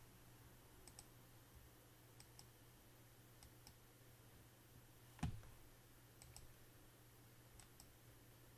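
Near silence with faint computer mouse clicks, mostly in quick pairs every second or so, over a low steady hum; one louder low thump about five seconds in.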